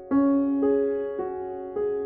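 Background music: soft piano, slow sustained notes, a new note or chord struck about every half second.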